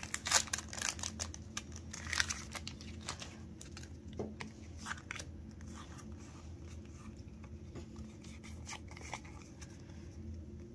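Foil wrapper of a Pokémon trading-card booster pack torn open and crinkling for the first few seconds, then quieter rustling and scattered clicks as the cards inside are handled. A steady low hum runs underneath.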